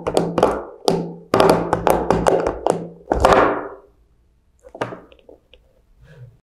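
Quick run of thunks and taps, several a second, dying away about four seconds in; a few faint clicks follow near the end.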